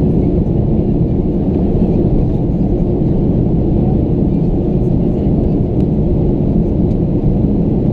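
Steady low cabin rumble of a Boeing 737-800 in flight: engine and airflow noise heard from inside the passenger cabin.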